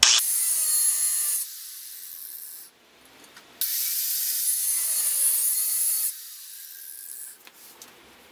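Angle grinder cutting into the steel rear trailing arm of a car in two loud, high-pitched grinding bursts, one about a second and a half long and one about two and a half seconds, with the tool running quieter after each.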